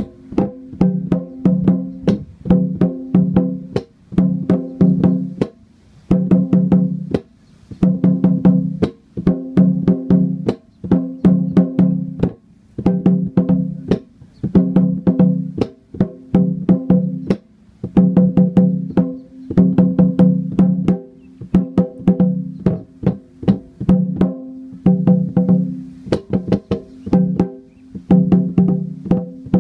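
Small wooden barrel drum beaten with a stick, playing the Malawian Indingala rhythm: a phrase of quick strokes repeating about once a second, the drum ringing with a clear low pitch.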